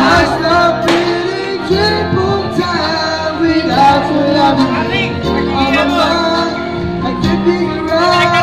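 A man singing karaoke into a microphone over a backing track.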